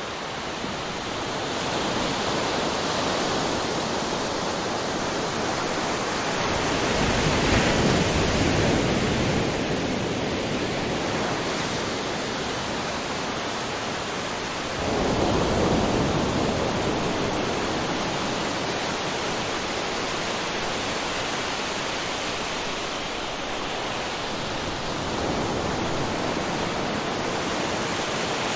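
Ocean surf: a continuous wash of waves, swelling and falling back several times, one wave breaking abruptly about halfway through.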